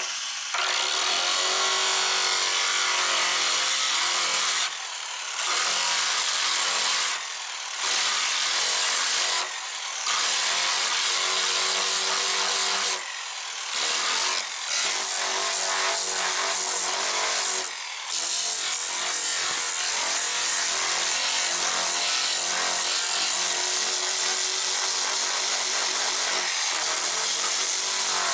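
Hand-held electric power tool working on a fiberglass part, running steadily with a motor hum underneath and briefly letting off about six times.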